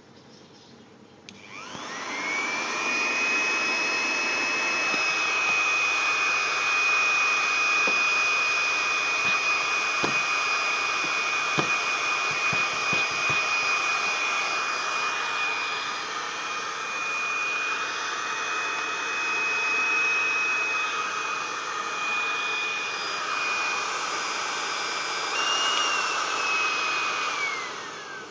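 Heat gun's fan motor running with a hiss of air blowing into a rubber glove. It starts about a second in with a whine that climbs to a steady high pitch, runs on, and winds down with a falling whine near the end.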